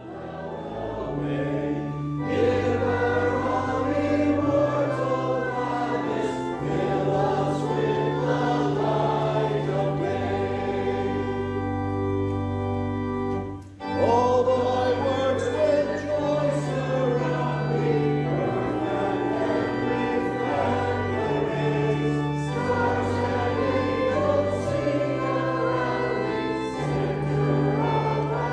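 A recessional hymn sung by many voices with organ accompaniment, the organ holding steady low notes under the singing. About fourteen seconds in the music drops out for a moment, then starts again.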